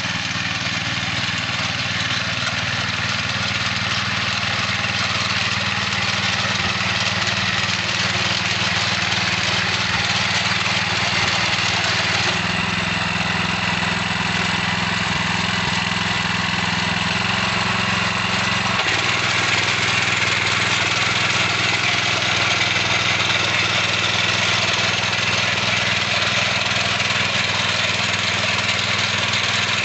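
Mini tiller's small single-cylinder petrol engine running steadily while its tines churn dry, hard soil. The engine note shifts about twelve seconds in and again about nineteen seconds in.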